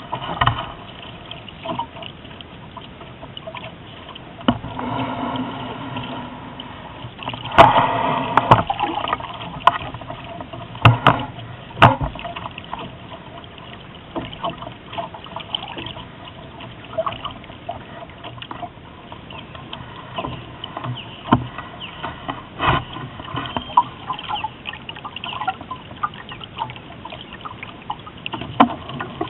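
Lake water slapping and gurgling against a small sailboat's hull under way, with irregular sharp splashes and knocks, the loudest about eight seconds in.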